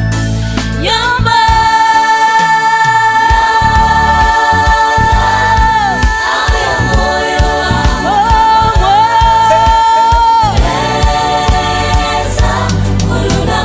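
Live gospel song: a singer holds long high notes, bending at their ends, over a choir and a band with drums. The bass and drums drop out briefly a couple of seconds in, then come back.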